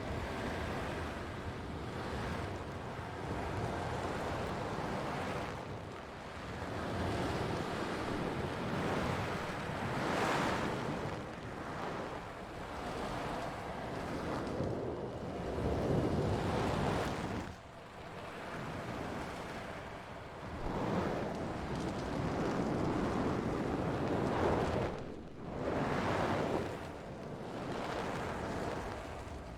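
ASMR white-noise trigger sound: a rushing hiss that swells and fades every few seconds, like surf.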